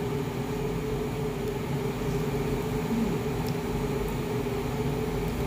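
Steady hum of a running household machine, with a constant low drone and a steady tone, and a couple of faint ticks about three and a half seconds in.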